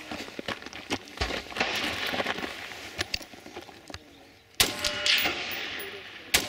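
Scuffling and rattling of gear as a shooter gets down into a kneeling position. This is followed by a single rifle shot from an AR-style rifle about two-thirds of the way in, with a short ring after it. A second sharp crack comes near the end.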